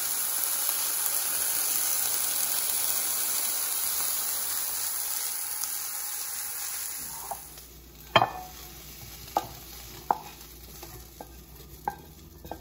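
Ground beef, green beans and yam cubes sizzling steadily in olive oil in a frying pan. About seven seconds in the sizzle dies away, and a handful of sharp clinks and knocks follow, about one a second, as the pan is tipped and the food knocked out into a bowl.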